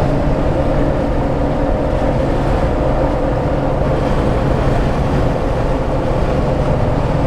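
Steady engine and road noise of a vehicle driving, a constant low hum under an even rush of noise.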